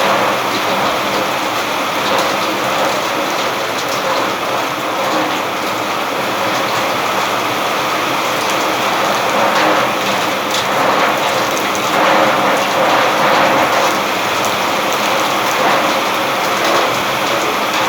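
Steady rain falling: a dense, even hiss with many individual drops spattering through it.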